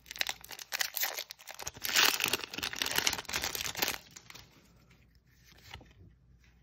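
A foil Magic: The Gathering booster pack wrapper being torn open by hand, crinkling and tearing. It is loudest around the second and third seconds and dies down after about four seconds.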